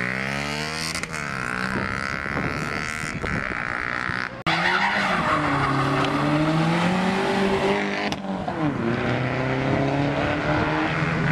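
A motorcycle engine revving as it rides off, then, after a sudden break about four and a half seconds in, a car engine revving hard with tyres squealing.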